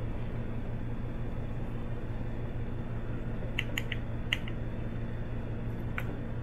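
A few light clicks of plastic espresso-maker parts being handled: about four quick clicks a little past halfway and one more near the end, over a steady low hum.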